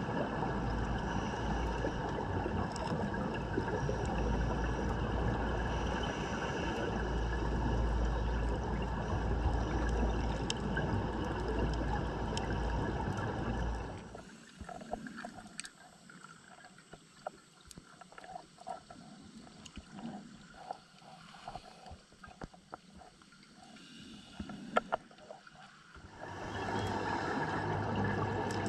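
Muffled underwater noise with a steady low drone, as picked up by a dive camera in its housing. About halfway through it drops to a much quieter stretch with scattered small clicks, then the louder noise and drone return near the end.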